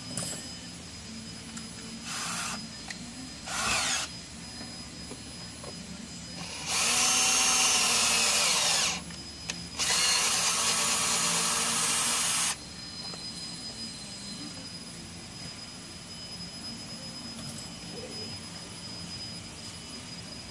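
Cordless drill boring a hole into the intake coupler just ahead of the throttle body for a vacuum fitting. A couple of short bursts come first, then two steady runs of two to three seconds each around the middle.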